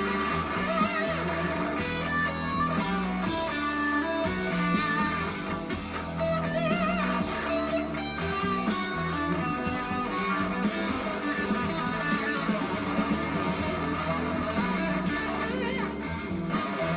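Electric guitar with a fuzz tone playing a lead jam over a backing track with bass and drums. The held lead notes waver with vibrato and bends.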